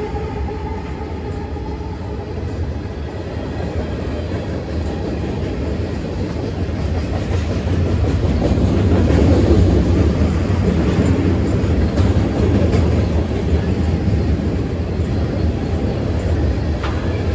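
Long freight train passing at track speed: a steady rumble of steel wheels on rail with the clickety-clack of rolling railcars, growing louder about halfway through.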